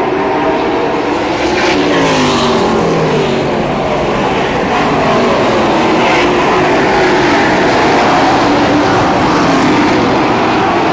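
A pack of super late model stock cars running at racing speed around a paved oval, several V8 engines overlapping. About two seconds in, cars pass close by and their engine pitch drops as they go away.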